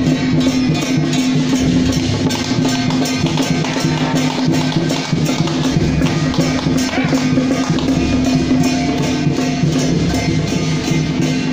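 Temple procession music: drums and cymbals beating a steady rhythm of about three strokes a second over low held tones.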